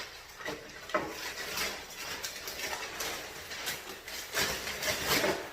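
Packing paper rustling and crinkling as it is pulled out of a cardboard shipping box, with irregular handling clicks.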